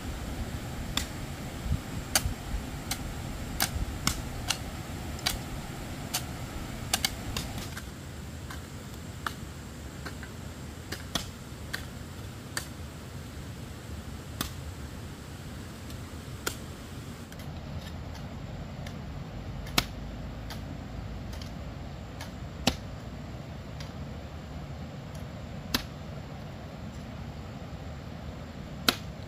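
Irregular sharp clicks or knocks over a steady low background noise, coming several a second in the first several seconds and then more sparsely.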